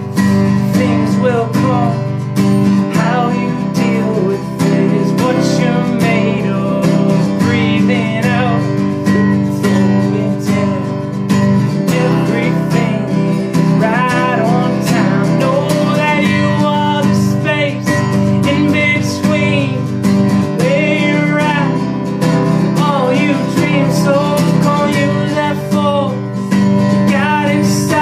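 Acoustic guitar strummed in a steady rhythm, with a man's singing voice over it.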